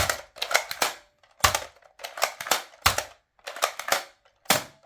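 Spring-powered Nerf foam-dart blaster being primed by hand and fired repeatedly: clacking priming strokes alternate with three sharp shots about a second and a half apart. The pump and spring are working well.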